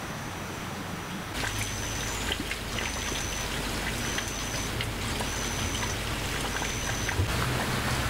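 Outdoor ambience: a steady hiss with scattered faint ticks, like light rain dripping, over a low hum. Five times, about a second apart, a short high thin note sounds, each about half a second long.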